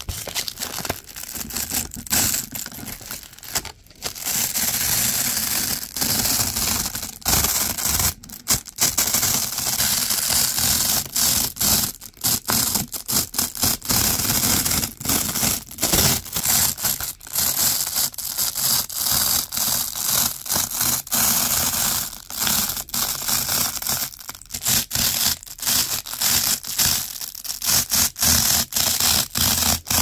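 Hook side of wide black Velcro tape dragged across another hook side, hook on hook, giving a continuous crunchy scratching in repeated strokes broken by short pauses.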